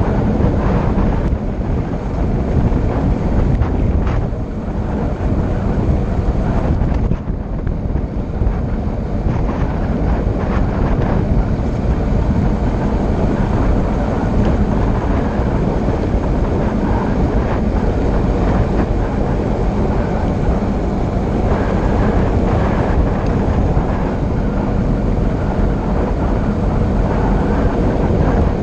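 Loud, steady wind rushing over the microphone on a fast downhill descent: a deep, unbroken rumble that dips briefly a couple of times.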